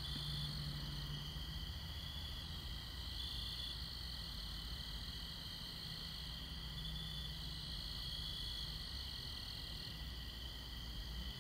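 Faint, steady chorus of night-calling insects, a continuous high-pitched trilling that swells and eases slowly, over a low hum.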